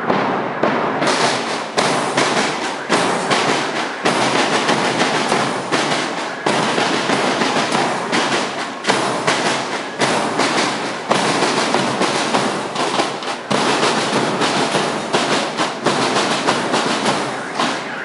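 School drum corps playing white marching snare drums: continuous rapid drumming, many sharp strokes with no break.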